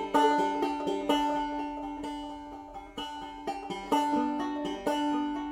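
Outro music: a banjo-led bluegrass tune, plucked notes picked at a steady pace.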